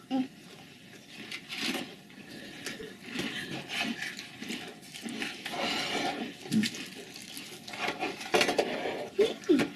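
Light clicks and rustles of tableware while people eat: plates, forks and a snack wrapper handled on a wooden table.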